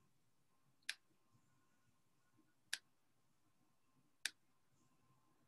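Three short, sharp computer mouse clicks, spaced about a second and a half apart, over near silence.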